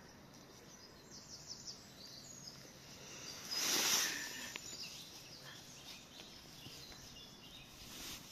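Small birds chirping and calling in short high phrases throughout, with a brief louder rustling noise about four seconds in.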